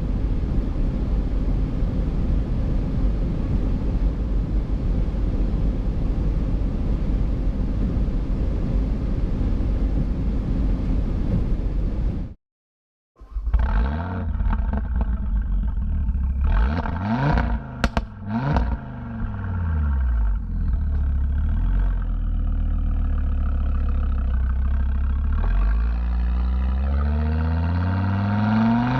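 Steady rumble of wind and road noise at speed. After a brief cut, the ABT-tuned Audi RS3's turbocharged 2.5-litre five-cylinder engine revs up and down several times. It then pulls steadily, rising in pitch near the end as the car accelerates.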